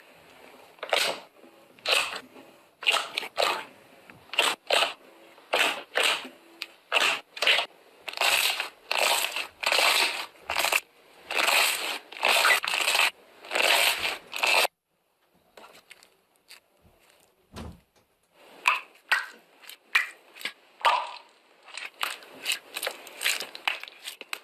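Slime being squeezed and pressed by hand, giving repeated short crunchy, crackling squishes about one to two a second. They stop suddenly just past the middle, leaving a few seconds with only a faint tick and one low thump, then resume.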